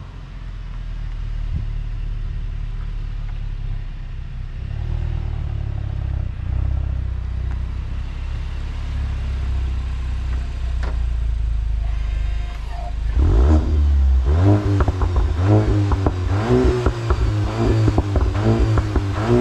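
Stock exhaust of a 2022 Mk8 Volkswagen GTI, its 2.0-litre turbo four idling with a low, steady hum close to the tailpipes. From about 13 seconds in come a run of quick revs, rising and falling, with sharp pops and crackles from the exhaust.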